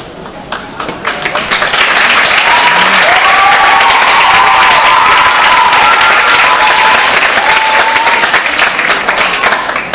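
Theatre audience applauding, building up over the first two seconds, holding strong and fading near the end, with a few voices calling out over the clapping.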